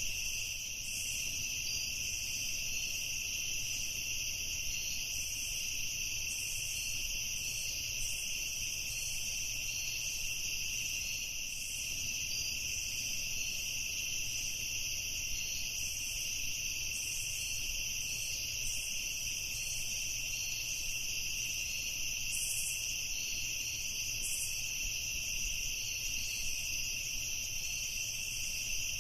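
Steady evening chorus of insects such as crickets, an unbroken high-pitched shrilling in two pitches with a faint low rumble beneath.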